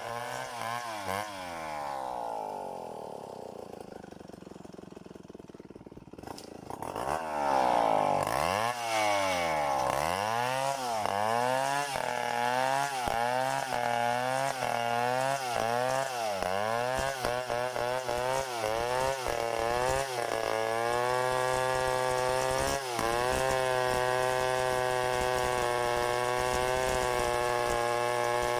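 Stihl 070 two-stroke chainsaw engine slowing toward idle over the first few seconds. It then revs again at about seven seconds, its speed rising and falling repeatedly, and holds a steady high speed from about twenty seconds on.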